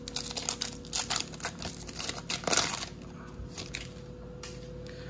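Foil booster pack wrapper crinkling and tearing as it is ripped open by hand, a dense crackle that is loudest about two and a half seconds in, then dies away.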